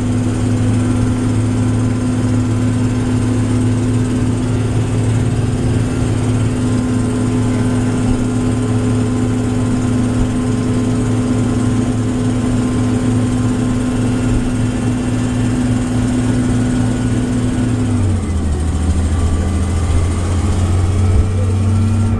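Compressed-natural-gas engine of a 2004 Orion VII transit bus running steadily, heard on board. About 18 seconds in, its note steps down to a lower pitch.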